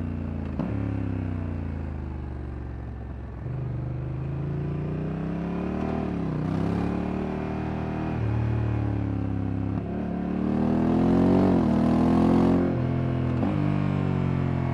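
Honda Africa Twin Adventure Sports DCT's 1084 cc parallel-twin engine pulling under acceleration, its pitch rising and then stepping abruptly at gear changes of the dual-clutch gearbox. The hardest, loudest pull, with rising pitch and wind rush, comes about two-thirds through.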